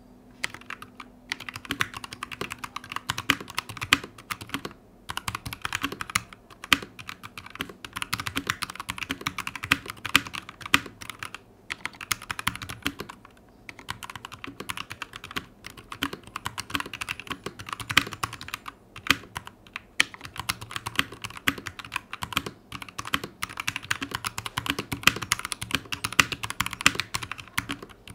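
Typing on a Capturer KT87 mechanical keyboard with stock Kailh Box Red linear switches: quick runs of keystrokes with short pauses between bursts. A foam damper between PCB and plate gives a thocky, not hollow, sound.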